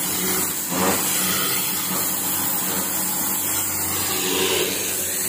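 Steady machinery noise: a low hum under a continuous hiss.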